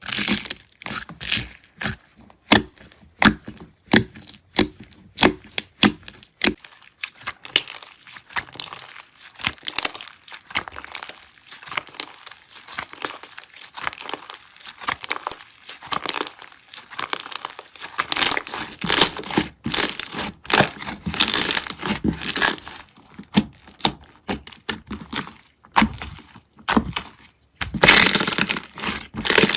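Slime being squeezed and worked by hand, making sharp crackling and popping sounds. There are separate snaps at first, then a denser, continuous crackle, with a loud burst near the end.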